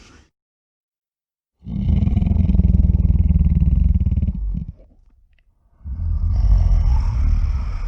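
Two low, rasping creature growls, one of about three seconds and a second of about two seconds after a short pause.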